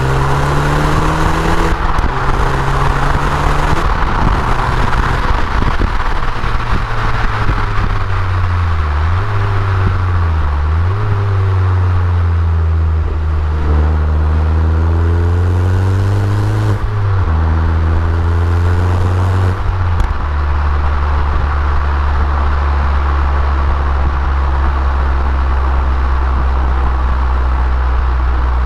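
Abarth Punto Evo EsseEsse's turbocharged 1.4 four-cylinder engine under way, its note rising and falling through the revs with several sudden drops in pitch, as at gear changes. After about twenty seconds it settles into a steady, even drone.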